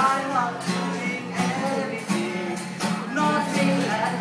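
Acoustic guitar strummed live, with a voice singing along.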